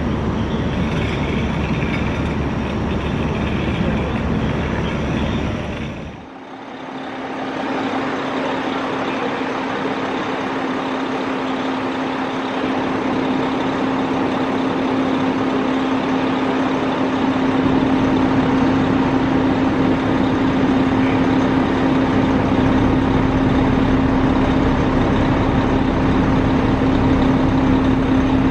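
Heavy truck diesel engine running steadily, with a steady low hum that comes in after a brief dip in level about six seconds in and grows stronger.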